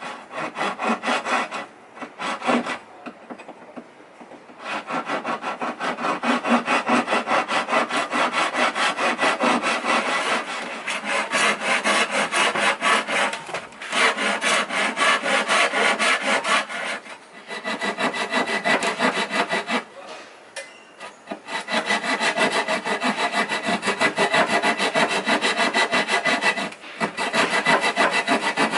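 Hand tool cutting wood with quick back-and-forth strokes, in runs broken by short pauses.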